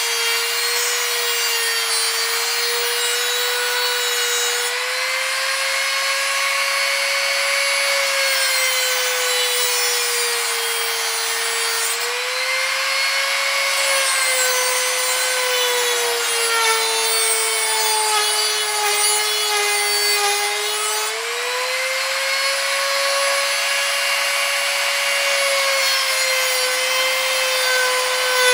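INGCO mini die grinder (rotary tool) cutting through a 5 mm iron nail with a small cut-off disc: a steady high motor whine over the hiss of the disc grinding into the metal. The pitch sags and recovers several times as the cut loads the motor.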